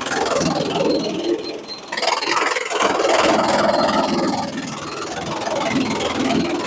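Sawmill machinery running, its noise rising and falling, with a brief dip just before two seconds in and louder running after it.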